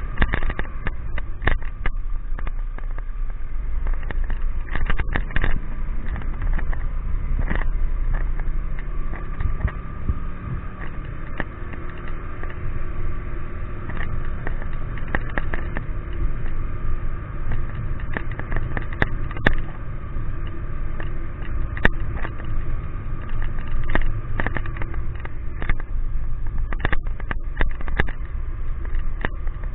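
Low road and engine rumble of a vehicle riding through rain, with many sharp clicks of raindrops striking the camera.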